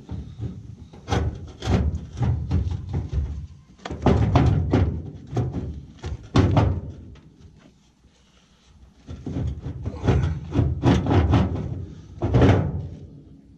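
Repeated heavy thuds and knocks against sheet metal in three bursts, with quieter pauses between them, as a loose heavy steel wedge is worked free from inside a truck cab corner.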